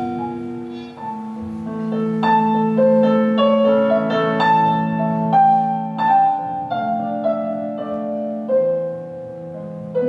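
Keyboard playing a piano melody of single notes over held low chords, an instrumental passage between sung verses.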